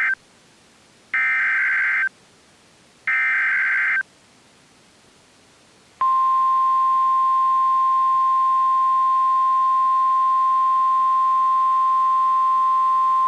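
Emergency Alert System signal from NOAA Weather Radio. First come the tail of one SAME header data burst and then two more buzzy one-second data bursts, a second apart, which encode the coming alert. About six seconds in, the 1050 Hz warning alarm tone starts: a single steady shrill tone that signals a tornado warning is about to be read.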